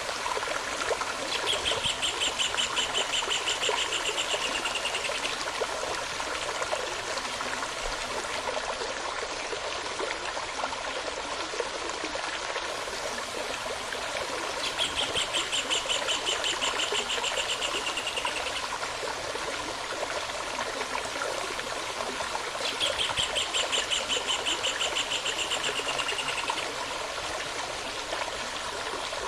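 A stream running steadily, with a songbird singing a rapid, slightly falling trill three times, each about four seconds long.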